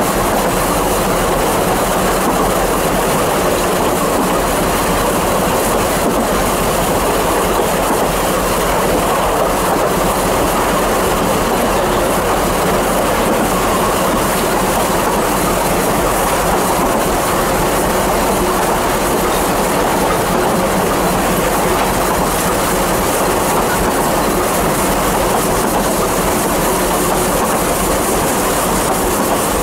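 Narrow-gauge steam train heard from on board a carriage: steady running noise of the wheels on the track, with a clickety-clack over the rail joints.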